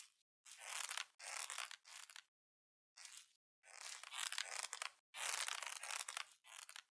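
A squeeze ball being squeezed over and over, each squeeze giving a crackling, crunchy burst of about half a second to a second, with short dead gaps between them, around seven in all.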